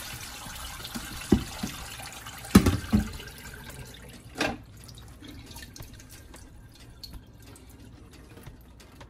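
Hot pasta water pouring through a strainer into a sink, the pour tailing off over the first few seconds. A few sharp knocks come between about one and four and a half seconds in, the loudest near the three-second mark.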